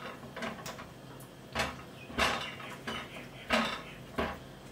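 Spatula stirring chocolate sauce in a stainless steel saucepan on the stove, with several short scrapes and knocks against the pan.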